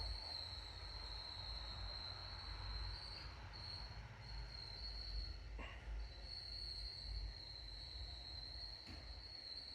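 Steady high-pitched insect trill, like crickets, with a few brief breaks, over a low rumble; a couple of faint clicks.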